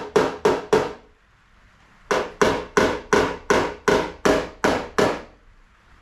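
A hammer tapping on a car's tailgate panel, knocking down high spots in a dent. The taps come about three a second in two runs, with a pause of about a second between them, and each tap rings briefly.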